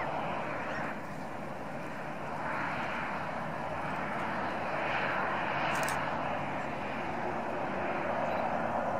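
Boeing 737 jet engines running at low thrust as the airliner taxis along the runway, a steady rushing noise that swells and eases slightly.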